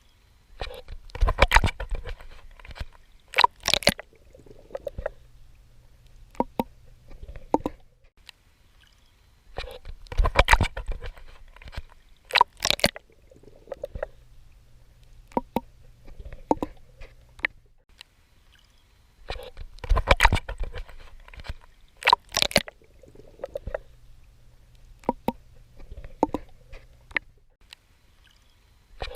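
Swimming strokes in the sea: each round has two strong splashes about two seconds apart, then a run of lighter slaps and drips. The same short sequence repeats about every nine and a half seconds, three times over.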